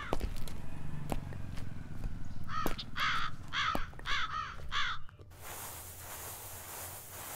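Crows cawing, a quick series of about five harsh caws around the middle. About five seconds in, the sound cuts suddenly to a quieter, steady outdoor hiss.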